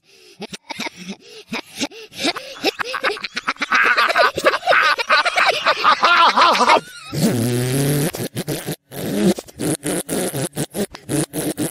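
Cartoon fart sound effects played backwards: a long, rapid rattle of popping pulses with wavering pitch, then a lower buzzing blast about seven seconds in, then more rapid pops.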